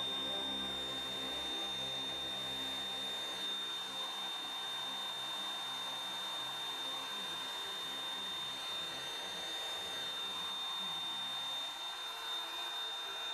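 Table-mounted router running at speed with a steady high whine, its bit cutting reeds into a turned wooden dome finial held in a fixture.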